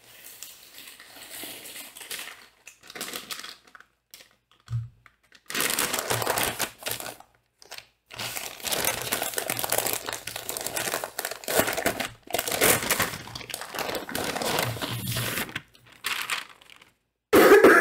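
Crinkling of a packaging bag being opened and its contents pulled out and handled, in stretches with short pauses. A soft thump comes about five seconds in.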